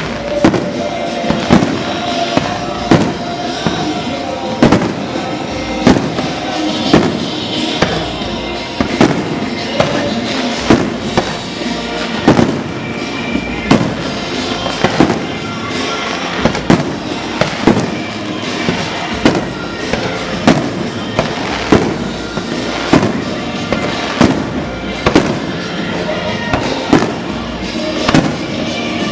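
Aerial fireworks bursting in quick succession, with irregular sharp bangs about one to two a second. Music plays underneath throughout.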